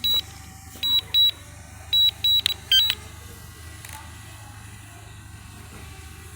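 DJI Mavic Mini's remote controller beeping during its automatic return-to-home landing: short high beeps in quick pairs and groups over the first three seconds, over a steady low hum.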